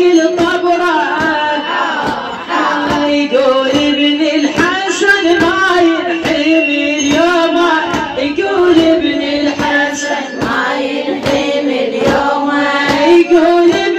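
A female mullaya singing a mournful Shia latmiya lament, with a steady beat of chest-beating (latm) keeping time under the voice.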